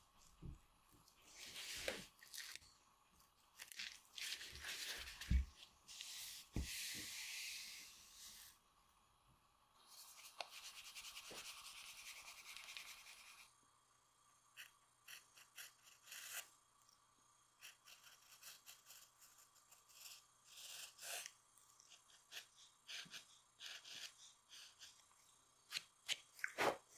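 Scraping and rubbing at first, with two longer hissing strokes. Then, from about halfway, comes a run of short, sharp cuts as a shoemaker's knife trims the edge of a leather sole.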